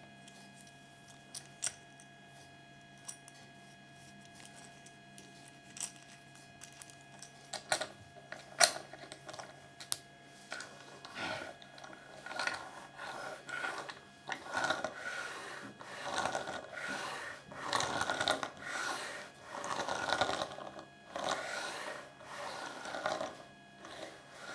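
Small plastic Kinder Surprise toys being handled: a few sharp clicks early, then from about ten seconds in a run of rustling, crinkling handling noises roughly once a second.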